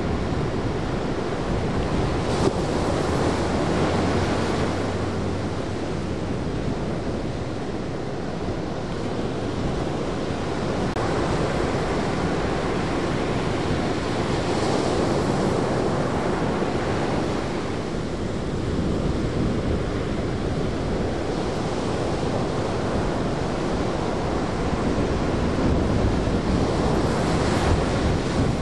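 Ocean waves breaking and washing in the shorebreak, a steady roar of surf that swells with each wave, with wind buffeting the microphone.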